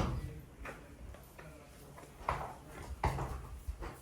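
A series of sharp knocks at uneven spacing, about five in four seconds, the loudest right at the start.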